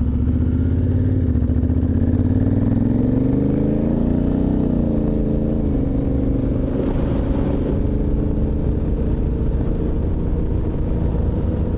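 Adventure motorcycle's engine pulling away and accelerating, its pitch rising through the first few seconds, then dropping with an upshift about five seconds in before running steadily at cruising speed.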